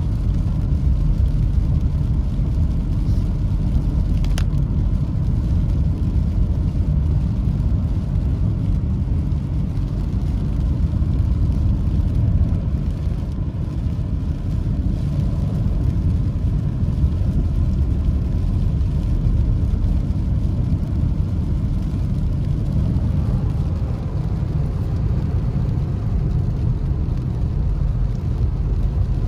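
Steady low rumble of a car driving on a rain-soaked road, heard from inside the cabin: tyre and road noise with the engine underneath. A single sharp click about four seconds in.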